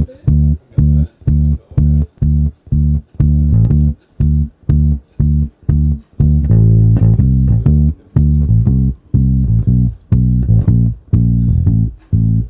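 Background music led by a plucked bass guitar: a steady run of short, separate notes, about two a second, which turn longer and more joined from about six seconds in.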